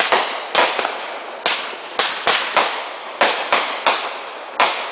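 Fireworks bursting in a quick series of about ten sharp bangs, each trailing off in a hissing, crackling decay.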